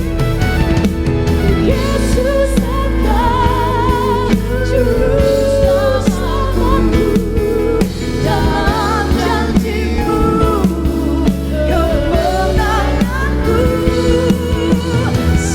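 Worship band music with drum kit and bass under a held, wavering sung melody.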